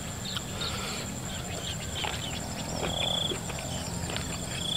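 Crickets chirping: a short high trill about three seconds in and another starting near the end, over a steady thin high tone and faint chewing clicks.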